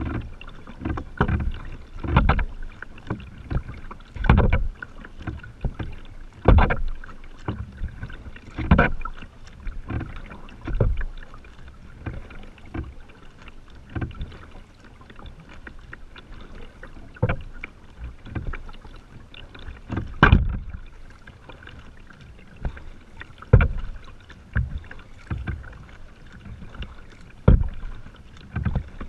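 Kayak paddle strokes: the blades dipping and splashing in calm river water every couple of seconds, some strokes sharper than others.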